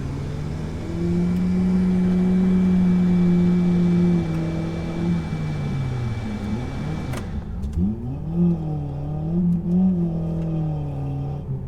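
Truck engine revving hard as the truck tries to climb out of mud, held high for about three seconds and then easing off. After an abrupt cut about seven seconds in, a wavering, rising-and-falling tone continues.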